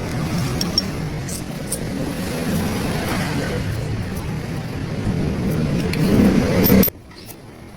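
Car on the move: steady road, tyre and engine noise that swells, then cuts off abruptly about seven seconds in.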